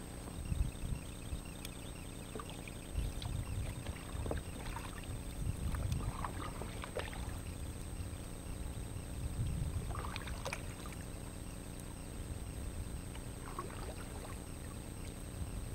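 Kayak paddle strokes: water splashing and dripping off the paddle blade in uneven bursts, over a steady low rumble.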